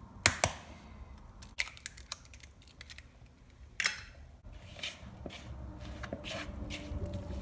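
A sharp tap of an egg being cracked against a mixing bowl, followed by a few more clicks. From about halfway, a hand squishes and kneads the sticky melted-mozzarella and flour dough in the bowl, with soft irregular rustles and small clicks.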